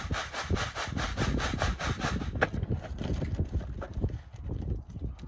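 Dry mineral-and-sugar mix swishing inside a plastic bucket as it is shaken to mix, about five even strokes a second for roughly two seconds. Then softer, irregular rustling of a plastic bag at the bucket's rim.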